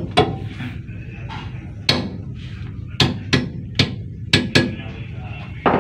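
Hand hammer tapping on a crane radiator (water) pump's shaft assembly, driving a part into place during reassembly: about eight sharp, irregularly spaced knocks, several close together in the middle and the loudest near the end.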